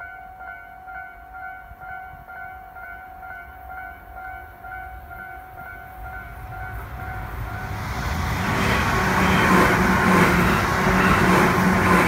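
Japanese level-crossing warning bell ringing a repeated two-pitch clang, about two and a half strokes a second. From about seven seconds in, a Tobu Railway electric train approaches and passes through the crossing. Its running noise grows loud and drowns out the bell.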